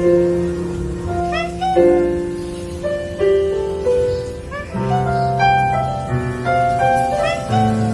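Slow, sad piano music: held chords and single notes changing every second or two.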